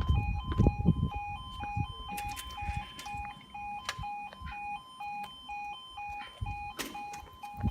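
Level crossing audible warning alarm sounding: a rapid two-tone electronic yelp, about three notes a second, the signal that the crossing is closed for an approaching train. A low rumble fades out in the first second or so.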